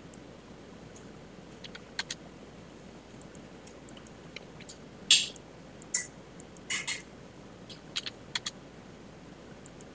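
Scattered clicks and keystrokes on a computer keyboard and mouse during CAD drafting, in irregular clusters over a faint steady room hum, the loudest tap about five seconds in.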